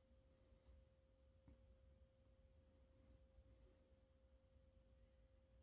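Near silence: room tone with a faint, steady tone held throughout.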